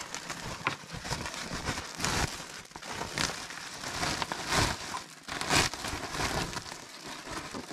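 Woven plastic sack rustling and crinkling as it is handled, in several short, irregular bursts.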